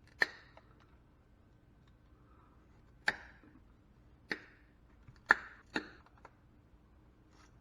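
About five sharp clicks and knocks at irregular intervals, with fainter ticks between them: hand tools working on and handling metal scrap parts.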